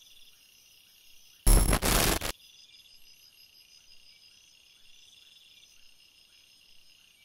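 Crickets chirping steadily in a high, pulsing trill. About one and a half seconds in, a sudden loud burst of rushing noise lasts just under a second and cuts off.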